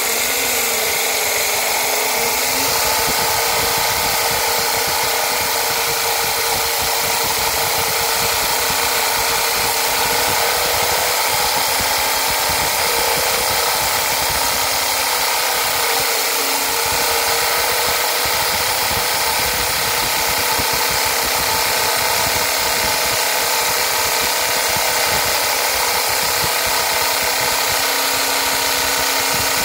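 Core drill bit boring a hole through a granite slab: the drill motor runs steadily with a whine over a grinding hiss of the bit cutting stone.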